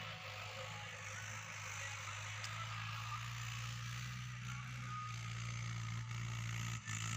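A steady low motor hum with an even hiss over it, dipping briefly near the end.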